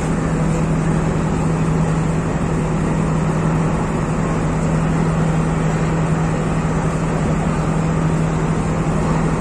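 Steady drone of a passenger train's diesel engine, with one constant low hum under a wash of noise, heard from a carriage of the train.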